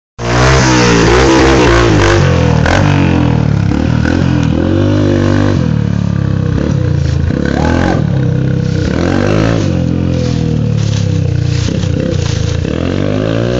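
Small dirt bike engine running under two riders, its pitch rising and falling again and again with the throttle as it pulls away; loudest at the start, a little fainter as it moves off.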